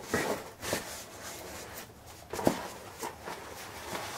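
Handling noise as an airsoft RPK replica is lifted out of its padded box: rustling of the packaging with a few knocks, the loudest about two and a half seconds in.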